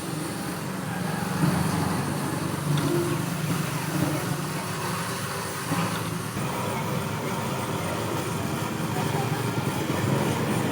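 Suzuki Cultus EFI's three-cylinder petrol engine idling steadily, with the new belt-adjuster bearing fitted, so the earlier metal-on-metal bearing noise is gone.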